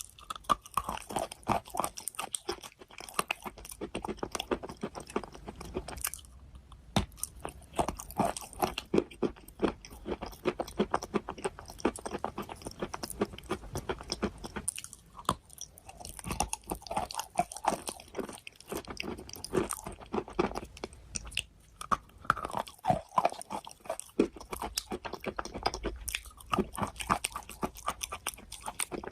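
A person biting and chewing something crunchy close to the microphone: a steady run of wet crunches, broken by a few short pauses.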